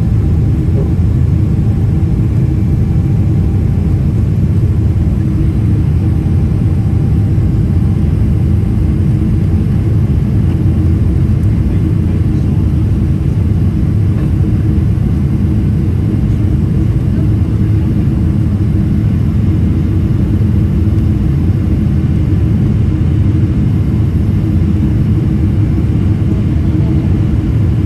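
Cabin noise of a Boeing 777-300ER climbing out just after takeoff: its GE90 engines at climb power and the rushing airflow, heard from a seat over the wing as a loud, steady low drone.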